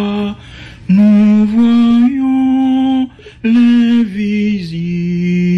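A voice singing a slow melody in long held notes, stepping from note to note, with two short breaths between phrases.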